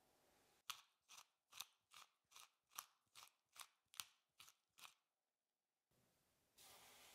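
Wooden pepper mill being twisted over a bowl, grinding black pepper in about eleven short, even clicks, roughly two and a half a second, which then stop. A soft rustle begins near the end.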